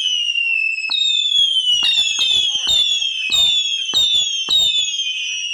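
Whistling fireworks going off in quick succession: a string of overlapping shrill whistles, each starting with a sharp crack and falling in pitch, a new one about every half second.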